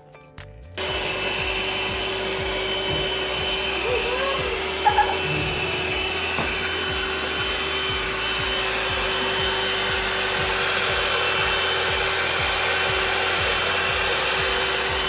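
Electric cake mixer switching on about a second in and running steadily as it beats cake batter of butter, brown sugar and egg, with two short knocks about five seconds in.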